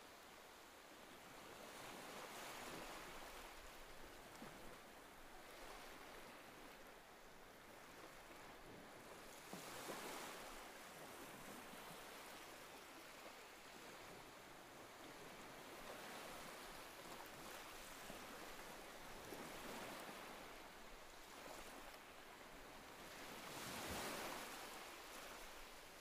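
Faint surf: waves washing onto a sandy beach, the rush swelling and fading every several seconds.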